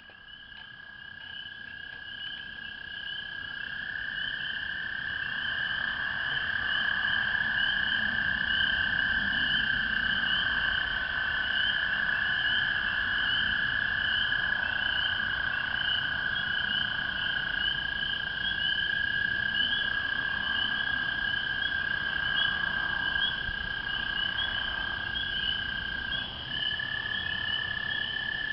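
Spring chorus of frogs and toads, led by American toads giving long, steady, high trills that overlap one another without a break. The chorus fades in over the first few seconds.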